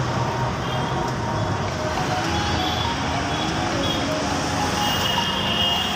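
City road traffic: vehicle engines running close by, a steady even noise.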